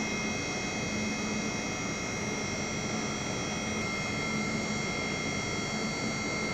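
Y2-100-8 induction motor, rewound with the Slavyanka winding and driven by an inverter at 200 Hz, running steadily at about 2,900 rpm on a loaded test bench near 9 kW output, far above its 1.1 kW 50 Hz rating. It makes a constant running noise with several steady high-pitched whining tones over a low hum.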